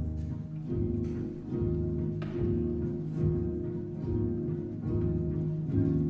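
Background orchestral music led by low strings, with a new note or chord about every eight-tenths of a second.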